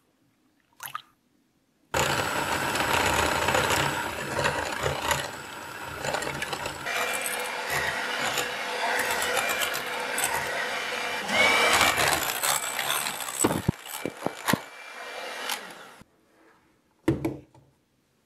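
Electric hand mixer whipping cream in a glass bowl: the motor and beaters start about two seconds in, run steadily while the cream thickens toward soft peaks, and stop suddenly near the end, followed by a single knock.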